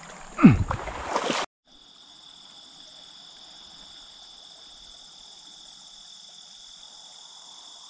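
A short loud thud about half a second in, then the sound cuts out and gives way to a steady summer insect chorus: continuous high-pitched trilling in several bands, with a faint stream hiss beneath.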